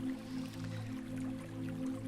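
Soft background music of steady, held low tones.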